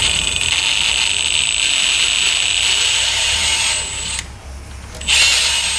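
Power drill running as it bores out the cross-threaded distributor hold-down bolt hole in a Corvette's intake manifold, enlarging it for a tap and threaded insert. The drill runs steadily, stops about four seconds in, and starts again about a second later.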